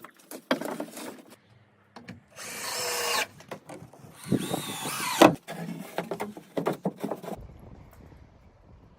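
A power tool runs in two short bursts of about a second each, its whine shifting in pitch, among scattered knocks and clicks.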